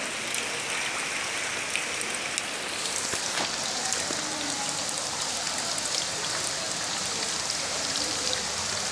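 Heavy rain falling on standing floodwater, a steady, even hiss.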